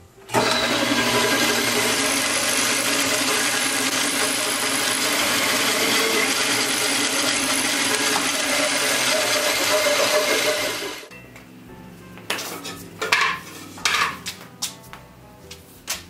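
Band saw running with a steady motor hum, switched off about eleven seconds in and running down. After it stops come a few knocks and rattles as the coiled hard rubber tire stock is handled.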